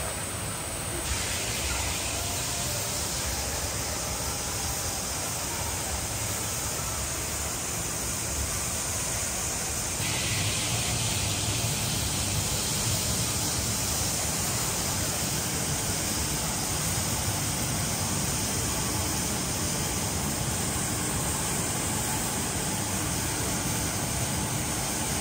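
Steady rushing roar of the HSBC Rain Vortex, a very tall indoor waterfall, its water pouring down without a break. The tone of the rush shifts slightly about a second in and again about ten seconds in.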